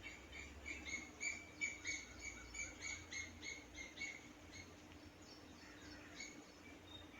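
A bird calling faintly in the background: a quick regular series of short, high chirps, about three a second, that stops after about four and a half seconds, with a few fainter chirps a little later.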